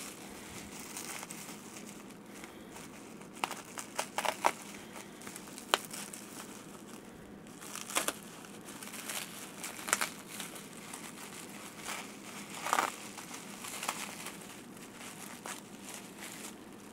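Plastic bubble wrap crinkling and rustling as it is handled and cut open with a hobby knife, with scattered sharp crackles.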